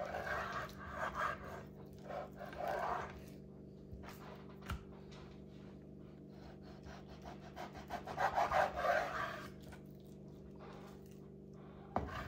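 Kitchen knife sawing back and forth through raw bacon on a wooden cutting board, in two stretches of rasping strokes, with a few sharp knocks of the blade on the board.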